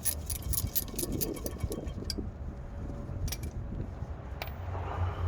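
Ratchet wrench clicking rapidly, about six clicks a second, as a rear brake caliper bolt is turned out. The clicking stops about two seconds in, and a few light metallic clinks follow.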